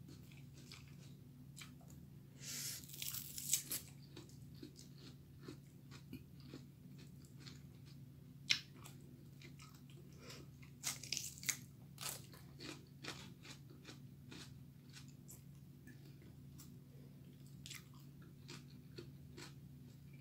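Crisp crunching and chewing of raw bell pepper pieces, scattered bites with louder crunches a few seconds in and again around halfway, over a steady low hum.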